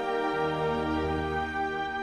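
Slow, sad background music of sustained held chords over a steady low bass note.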